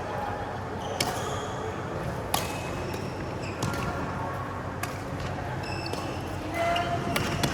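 Badminton rally: four sharp racket strikes on the shuttlecock, one to two and a half seconds apart, with short high squeaks of shoes on the court floor between them, over steady hall noise.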